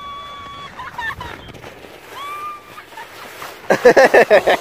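A child's high-pitched squeal held for about a second while sledding downhill, then a second, shorter squeal. From about three and a half seconds in, loud close laughing and shrieking as the sled crashes into the person filming.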